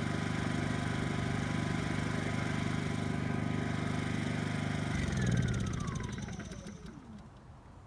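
Honda EU2000i inverter generator running steadily at reduced eco-mode speed, then switched off about five seconds in. Its engine winds down with a falling whine that fades out over about two seconds.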